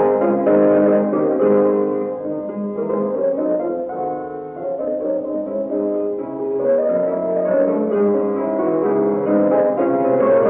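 Solo piano playing classical music in a live recording: sustained chords and melodic lines that grow quieter around the middle and swell again.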